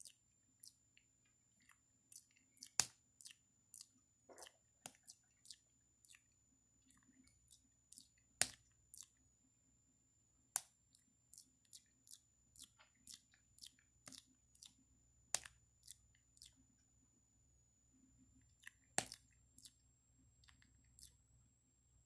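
Java macaque grooming a person's hair, with irregular sharp clicks and smacks from its teeth and lips as it mouths what it picks out, about one or two a second, a few much louder than the rest.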